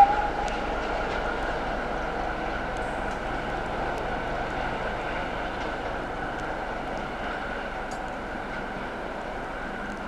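ChME3 shunting diesel locomotive running as it pulls away, a steady engine drone that slowly fades; the last of a horn toot dies away at the very start.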